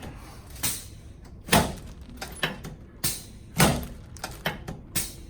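A series of sharp knocks and thumps as a patient is moved and repositioned on a chiropractic treatment table, two of them louder than the rest, about one and a half and three and a half seconds in.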